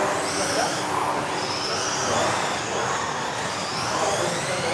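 Several 1:10 electric off-road RC buggies racing together, their motors whining in overlapping high-pitched tones that rise and fall as they accelerate and brake, over a steady noise of tyres and drivetrains.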